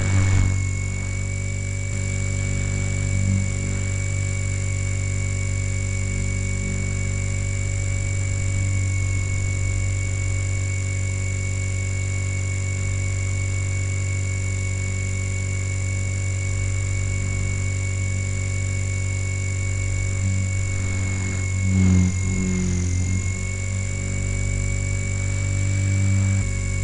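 Align T-REX 450 electric RC helicopter in flight, heard close up from on board: a steady low rotor buzz with the high whine of its electric motor and gears. The pitch wavers and dips briefly a few seconds before the end, then settles again.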